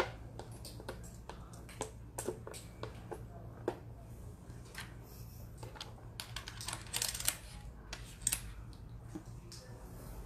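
Plastic Othello discs clicking as they are flipped and set down on the board and on the tabletop: a string of sharp clicks, with a quick clatter of several together about seven seconds in.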